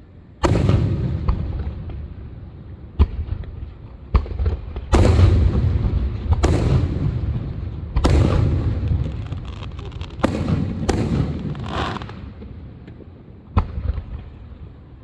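Fireworks going off: a run of about nine sharp bangs a second or two apart, each followed by a long rumbling echo, with faint crackling between the bangs.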